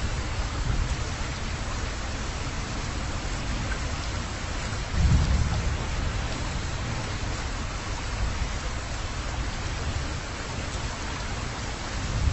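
Wind and road noise in a slowly moving car: a steady rush over a low rumble, with a louder low thud about five seconds in.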